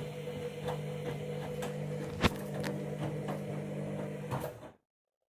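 Candy washing machine running on a synthetics wash, its drum motor humming steadily while the turning drum and load make light clicks and knocks about twice a second. One louder knock comes a little past two seconds in, and the sound cuts off abruptly near the end.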